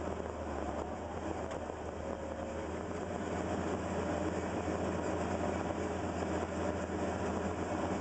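Caterpillar 320L excavator's diesel engine running, heard from inside the cab; it gets louder about three seconds in as it works harder while the machine swings.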